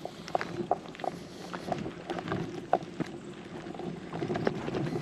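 Footsteps crunching on a gravel-strewn paved road, short irregular steps about two a second.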